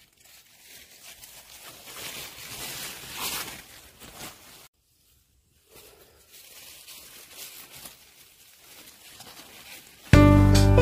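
Large squash leaves and stems rustling and brushing as a hand pushes through the plants, cut off by about a second of dead silence midway. Music comes in suddenly near the end.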